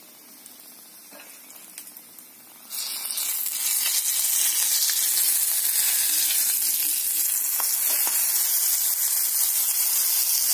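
Oil sizzling in a steel frying pan as stuffed eggplants shallow-fry. It is faint at first, then suddenly much louder from about a quarter of the way in, with a few light taps of a metal spatula against the pan.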